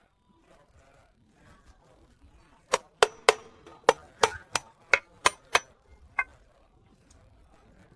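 A quick run of about ten sharp knocks, roughly three a second, lasting a few seconds in the middle, with faint background noise around them.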